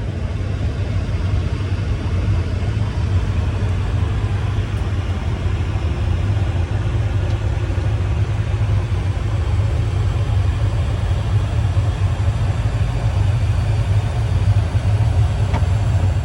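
Steady low rumble of engine and airflow noise inside the cabin of an Airbus A321neo, growing slightly louder through the stretch.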